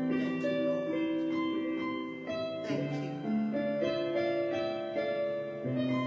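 Slow instrumental keyboard music: soft piano-like chords and single notes held for a second or more at a time.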